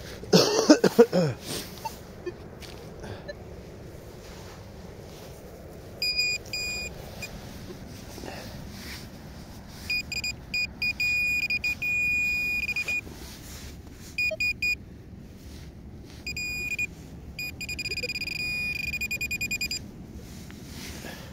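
Metal-detecting gear beeping over a buried metal target: a high electronic tone in short beeps, a longer steady tone, then rapid pulsing beeps near the end. A burst of loud knocks and scrapes comes about half a second in.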